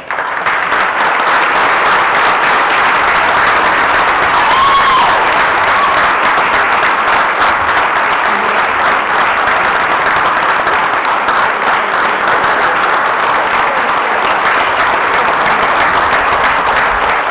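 Audience applauding: loud, steady clapping from a room full of people, starting abruptly.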